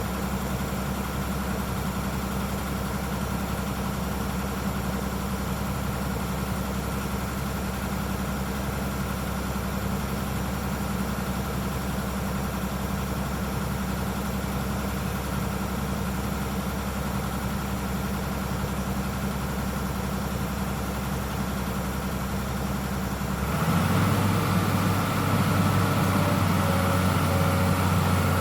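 Hydraulic excavator's diesel engine idling steadily, then changing pitch and getting louder about 23 seconds in as it revs up.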